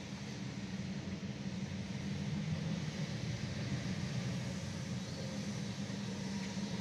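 Union Railroad diesel locomotives running under power as they approach: a steady low engine drone with no horn or clear wheel noise.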